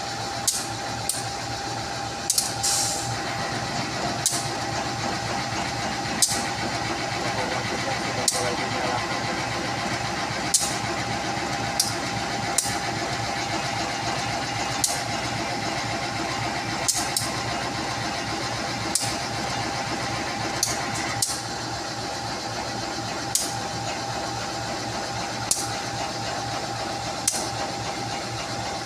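Diesel locomotive engine idling with a steady hum and a held tone, with sharp clicks every second or two.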